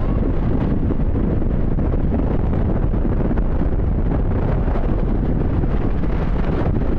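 Steady wind rumble on the microphone of a motorcycle riding at speed, mixed with the bike's running and road noise.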